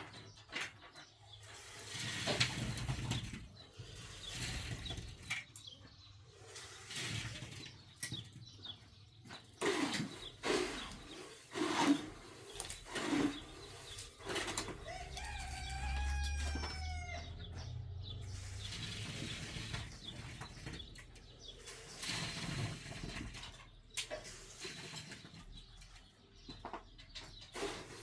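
Farmyard chickens: scattered rustling and wing flaps, with a rooster crowing once about halfway through.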